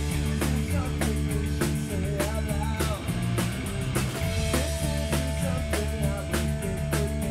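Live rock band playing: electric guitars, electric bass guitar and a drum kit keeping a steady driving beat, with a long held note through the second half.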